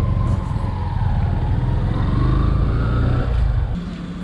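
Motorcycle engine running as the bike rides off, its pitch rising and falling with the throttle. Just before the end the engine sound drops away abruptly to a quieter steady hum.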